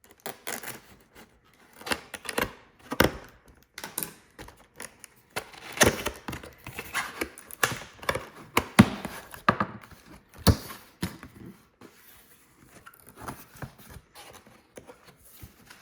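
A cardboard box and its packing being opened and unpacked by hand: irregular tearing, rustling and crinkling with scattered knocks and thumps.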